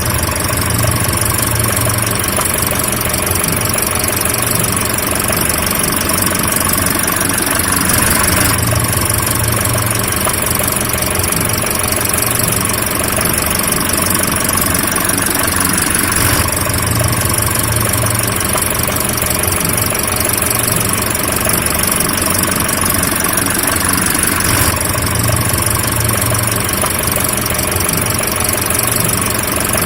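Car engine running steadily, with a pattern that repeats about every eight seconds.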